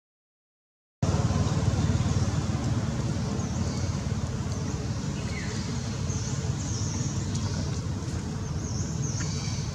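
Outdoor background noise that starts abruptly about a second in: a steady low rumble, with short high chirps recurring above it.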